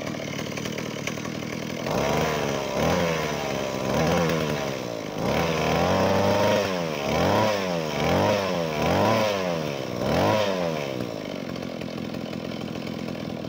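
Old Echo backpack brush cutter's two-stroke engine idling, then revved up and down about eight times in quick succession, each rev a rising then falling whine, before dropping back to a steady idle near the end.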